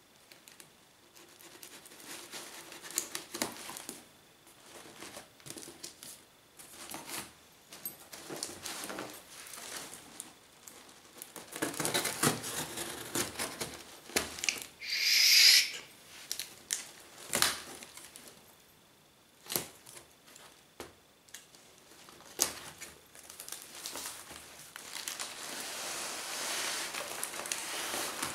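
Cardboard parcel being opened by hand: scattered scrapes, taps and rustles of cardboard and packing tape, with one loud tearing rip about halfway through, and a steadier rustle near the end as the flaps come open over the packing.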